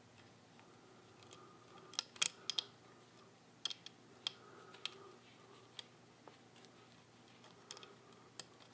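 Small steel parts of a Singer 15-91 bobbin winder clicking and tapping against each other and the machine as they are fitted by hand. A scattered run of sharp, light clicks, busiest between about two and five seconds in.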